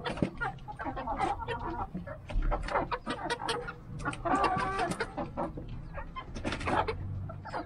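A mixed flock of chickens clucking in short, overlapping calls as they feed, louder for a stretch about four seconds in. Short sharp clicks come between the calls as they peck at greens on the dirt floor.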